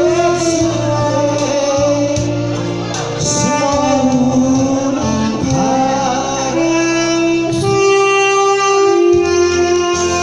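Saxophone playing a slow melody of long held notes with pitch bends, over a backing track with light percussion.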